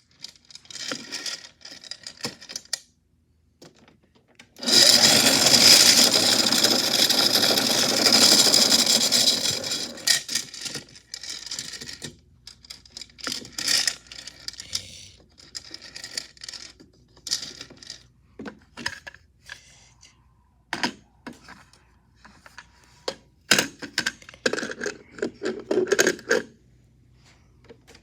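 Metal chains clinking and rattling in a toy washing machine, with a loud, dense stretch of rattling about five seconds in, then scattered clicks and clanks.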